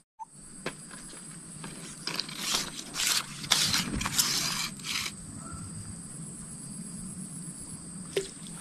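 Rustling and scraping, loudest in several bursts between about two and five seconds in, over a faint steady high-pitched tone.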